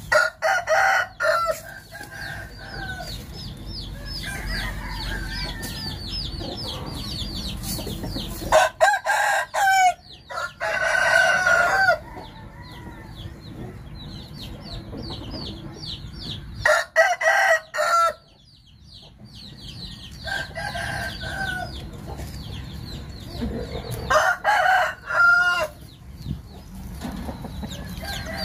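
Game roosters crowing again and again, each crow lasting one to one and a half seconds, with some clucking between crows. Quick, high-pitched chirping runs steadily in the background.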